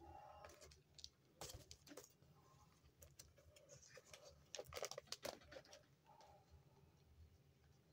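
Faint rustling and soft clicks of a paper comic book being handled and turned over, busiest about halfway through.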